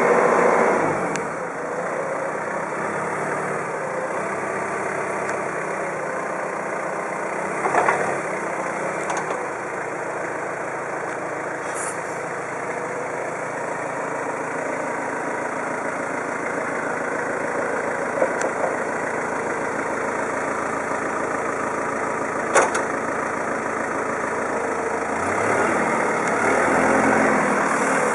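Clark counterbalance forklift's engine running as it drives and manoeuvres, louder at the start and again near the end. A few brief knocks stand out over it.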